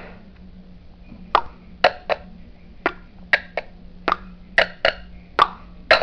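A parrot making a run of about a dozen sharp, irregular clicks, over a low steady hum.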